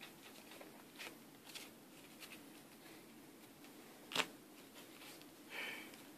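Sleeved trading cards being handled and placed on a playmat: a few faint taps, a sharper click about four seconds in, and a short rustle near the end.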